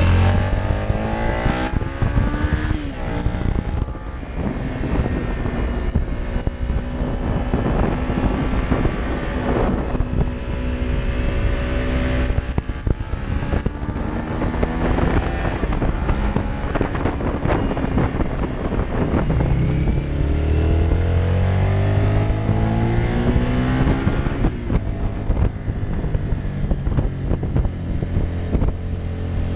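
Suzuki SV650 motorcycle's V-twin engine running through its exhaust, the pitch rising and falling several times as it is revved, over a heavy low rumble.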